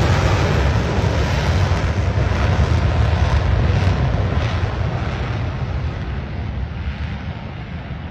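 Steady noise of an F/A-18 Hornet's jet engines and rushing air heard from inside the cockpit, with a heavy low rumble, easing off a little toward the end.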